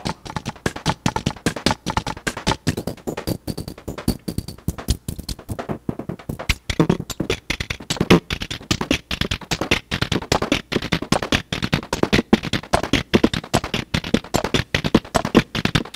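Make Noise Strega synthesizer's clock noise from its time circuits, sequenced by a 0-Ctrl into a fast, uneven percussive pattern of clicks and ticks, with a few short pitched blips mixed in.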